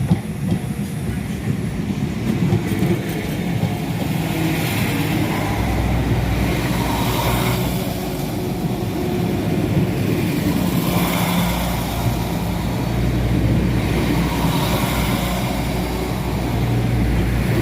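Northern Ireland Railways Class 4000 diesel multiple unit pulling out and passing over the level crossing: a steady engine and rail rumble that builds over the first few seconds, a low hum joining about five seconds in, and the sound swelling and fading every few seconds.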